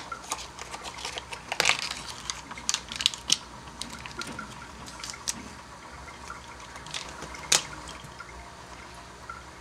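Water bubbling and dripping softly in a small aquarium, with scattered clicks and taps from a plastic jar being handled; the sharpest click comes about seven and a half seconds in.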